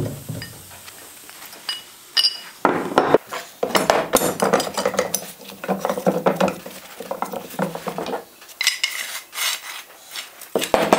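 Steel parts of an old Hi-Lift jack clinking, rattling and scraping as they are handled on a wooden workbench and a pin is worked through the jack's lifting mechanism. The clatter comes in irregular bursts, starting a couple of seconds in, with quieter gaps between.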